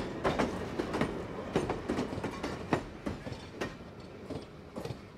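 Train wheels clacking over rail joints: a quick, uneven run of clicks that grows steadily fainter toward the end.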